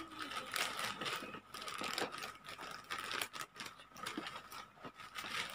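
White plastic courier pouch crinkling and ripping as it is torn open by hand, in irregular bursts of rustling.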